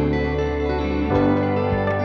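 Ambient background music of sustained, layered tones; about a second in the chord changes and a soft low beat comes in, roughly two beats a second.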